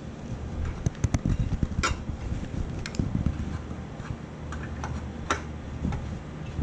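Short clicks and knocks of plastic and metal parts being handled while a UPS is put back together, a quick cluster about a second in and sharper single clicks near two seconds and about five seconds in, over a steady low hum.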